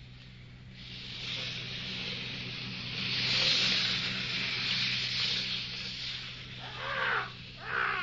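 Radio-drama sound effect: a hissing rush that swells up about a second in and dies away after about six seconds, bridging the scene to the ship at sea, over a steady low hum. Near the end come two short squawking cries from the ship's parrot.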